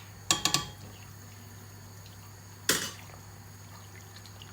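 A spoon stirring a thick flour-and-broth dough in a pot on the stove, clacking against the pot several times in quick succession just after the start and once more near the middle.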